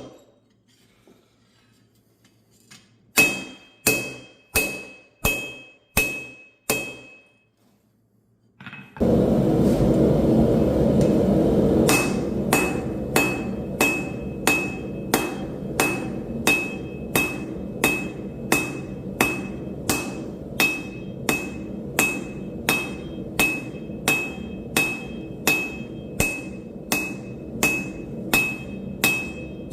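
Hammer blows on steel at the anvil while forging, each strike with a bright metallic ring. There is a short run of strikes, a pause, then a steady rushing noise comes in, and the hammering picks up again at a bit under two blows a second over it.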